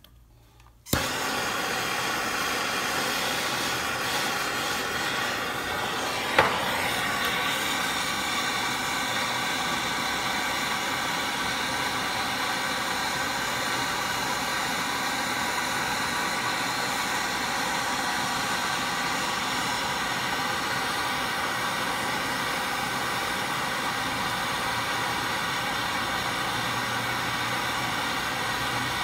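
Handheld gas torch on a yellow MAPP-gas cylinder catching about a second in and then burning with a steady hiss while its flame heats a pocket clip in the bender. A single brief tap comes about six seconds in.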